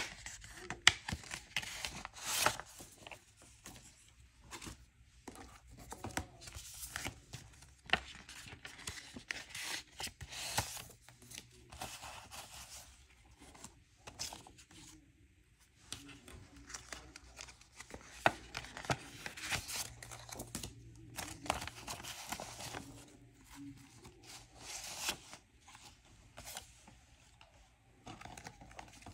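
Paper banknotes and cash envelopes handled by hand: irregular rustling and crinkling with sharp flicks as bills are pulled out and counted.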